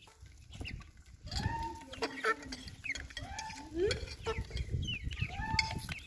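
Chickens clucking as they feed on scraps. Starting about a second in, three drawn-out arching calls come about two seconds apart, with shorter higher calls and light tapping between them.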